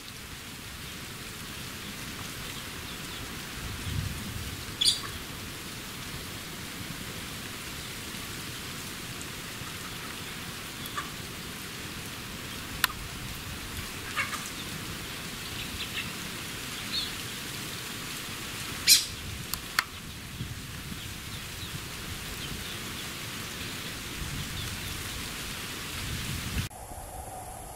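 A steady rain-like hiss with a few brief, sharp sounds scattered through it, the loudest about 19 seconds in.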